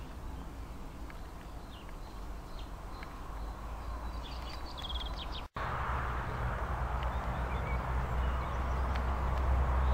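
Small birds chirping, with a short rapid trill about four seconds in, over a steady low outdoor rumble. The rumble grows louder after a brief dropout about halfway.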